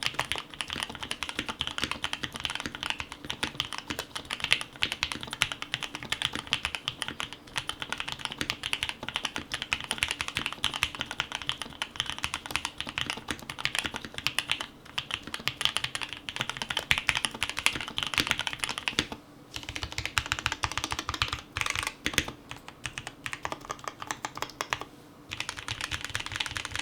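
Fast, continuous typing on a mechanical keyboard with Gateron Yellow linear switches, a dense stream of keystroke clacks. About two-thirds of the way through, after a short pause, the keystrokes sound deeper, with a few brief breaks in the typing after that.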